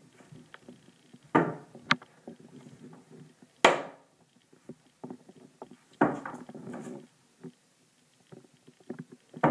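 Scattered knocks and rustling. The sharpest knock comes about three and a half seconds in, and a longer rustle about six seconds in.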